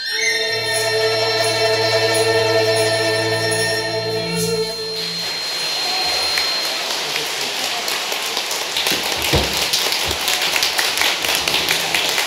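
Dizi bamboo flute and Chinese folk orchestra hold the final chord of the piece, cut off about five seconds in. Audience applause follows, with one low thump near the end.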